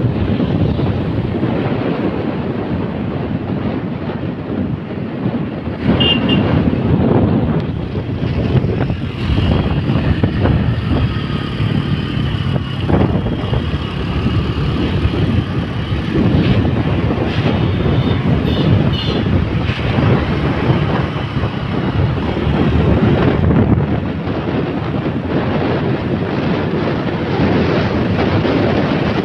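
A motorcycle riding along at road speed: loud, gusty wind buffeting on the microphone over the bike's running noise.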